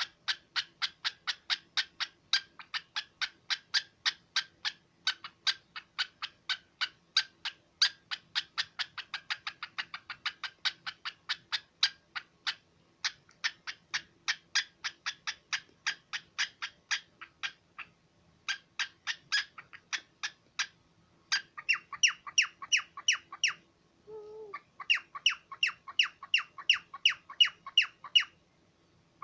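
Cockatiel calling in a fast, even series of short chirps, about three or four a second. A short pause comes about two-thirds of the way through, and after it the calls grow louder and fuller, broken once more briefly a few seconds before the end.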